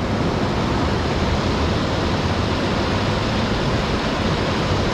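Tall waterfall: a loud, steady rush of falling water and spray.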